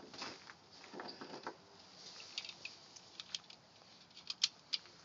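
Faint, scattered small clicks and light rustling, with a handful of sharp ticks spread irregularly through, most of them in the second half; no gunshot.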